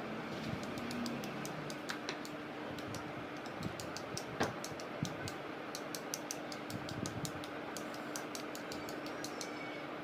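Light, irregular ticking of one paintbrush being tapped against another brush's handle, spattering paint specks onto the painting, with a few sharper knocks. A faint steady hum underneath.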